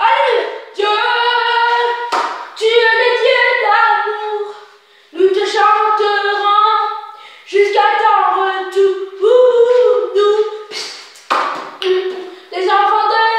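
A young singer's high voice singing a gospel song a cappella, in sung phrases broken by short pauses for breath, with no accompaniment.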